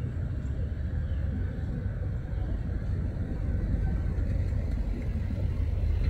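Low, steady rumble of an approaching diesel freight train's locomotives, growing slightly louder about four seconds in.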